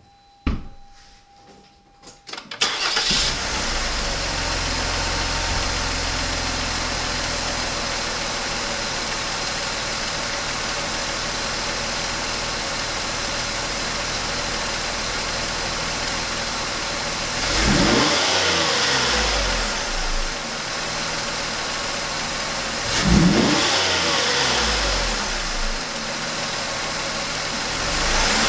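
Car engine starting about two and a half seconds in, then idling with a steady hiss over it, and revved briefly twice, once about two thirds of the way through and again some five seconds later. The owner suspects engine knocking and a hissing sound.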